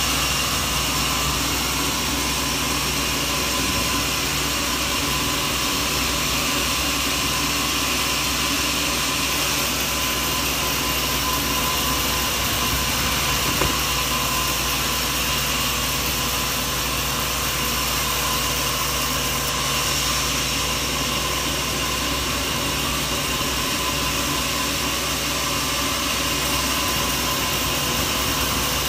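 Sawmill machinery running steadily, a continuous mechanical drone and whir with no breaks.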